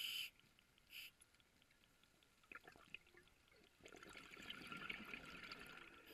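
Scuba diver breathing through a regulator, heard underwater. A steady hiss stops just after the start and briefly returns about a second in. From about four seconds in, exhaled bubbles gurgle and crackle to the end.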